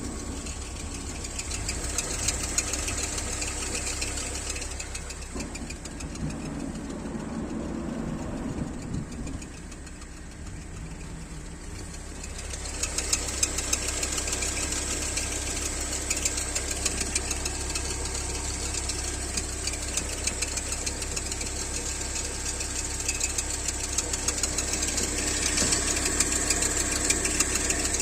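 Haval Jolion's engine idling on a cold start, with a steady high-pitched whistle over the engine's hum. The whistle fades for several seconds about a third of the way in, then comes back strongly.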